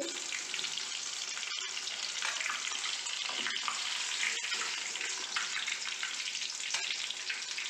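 Chicken kababs deep-frying in hot oil in a steel kadai: a steady crackling sizzle.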